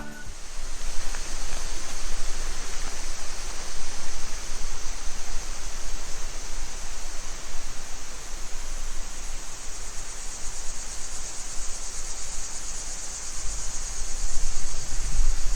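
Creek water rushing steadily: an even hiss of flowing water with no breaks.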